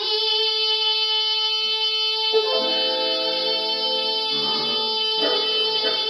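A young girl's singing voice holding one long final note of a song, over keyboard accompaniment whose chords come in about two seconds in and change twice beneath it.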